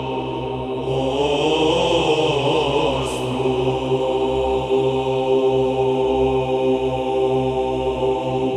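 Byzantine psaltic chant in Romanian sung by a small group over a steady held drone (ison): a short melismatic run on the closing words 'Dumnezeul nostru', settling about four seconds in into a long held final note.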